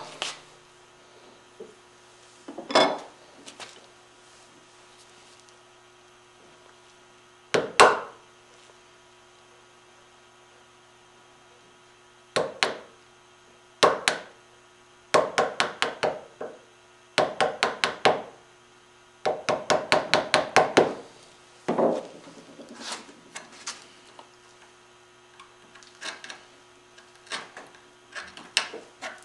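Hand saw cutting wood in short bursts of quick strokes, about three strokes a second, with single strokes and pauses between the runs, fading to lighter strokes near the end.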